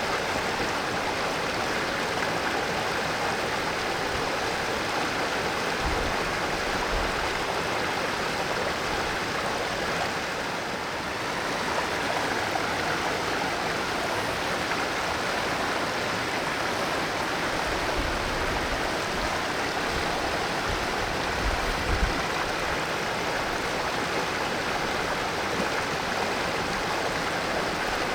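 Mountain valley stream flowing steadily, water rushing and splashing over rocks in an even, unbroken wash.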